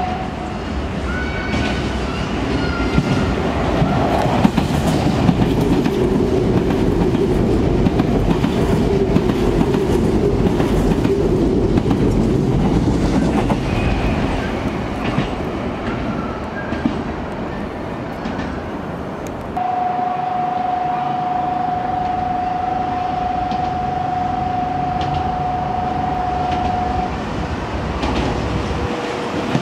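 Nankai electric train passing through a station without stopping: wheel clatter and rumble build over several seconds, hold, then ease away. About twenty seconds in, a steady high tone starts abruptly and holds for about seven seconds.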